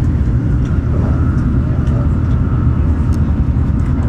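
Running noise inside the passenger cabin of an N700S Shinkansen train travelling along the line: a steady low rumble with a faint hum above it.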